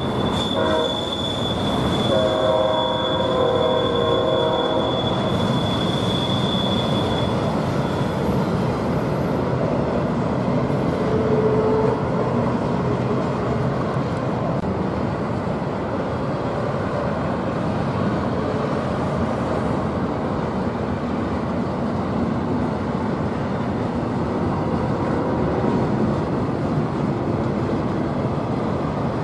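Double-stack intermodal container train rolling past: a steady rumble of wheels on rail, with a high, steady wheel squeal for the first several seconds.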